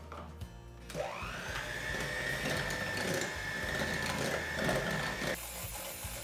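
Electric hand mixer beating instant pudding and milk in a glass bowl: the motor starts about a second in, its whine rising quickly to a steady pitch, then cuts off about a second before the end.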